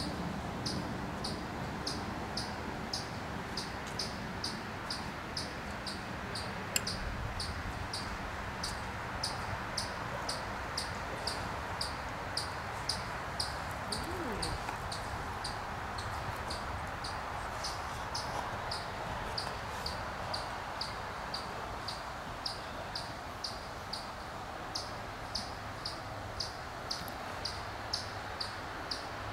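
An insect, likely a cricket, chirping steadily in short high chirps about twice a second, over a steady outdoor background hiss.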